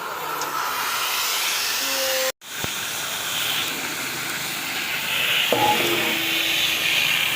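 Steady, loud hissing noise from metalworking on thick steel plate, cut off abruptly a little over two seconds in and starting again a moment later.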